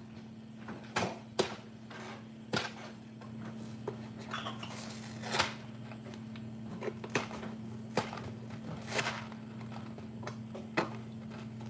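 Cardboard mac & cheese box being handled and pried open by hand, with scattered short taps and rustles of paperboard as the top resists opening. A steady low hum runs underneath.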